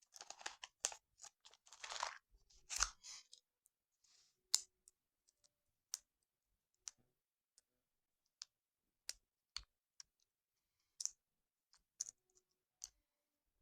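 Light handling sounds as a bowl of yogurt is topped with cashews. The first three seconds are a cluster of rustling and scraping, followed by sparse, sharp clicks and taps about once a second.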